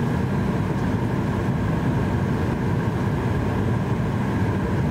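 Steady cabin air-conditioning noise inside a Boeing 737-800 standing at the gate with its doors closed: an even low rumble with a faint steady hum above it.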